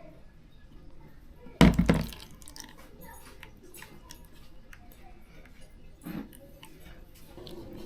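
Food-preparation handling sounds: a loud knock or clatter about a second and a half in, a smaller knock near six seconds, and light clinks and crunches between.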